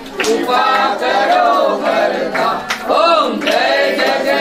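A group of voices singing a devotional song without instruments.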